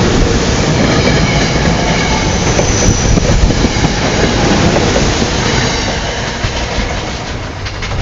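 Amtrak train running on the rails with loud wheel-on-rail noise and a faint high wheel squeal, easing off over the last couple of seconds.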